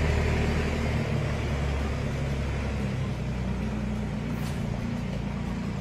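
Farm tractor towing a tank trailer, its engine running steadily as it drives away and slowly gets quieter.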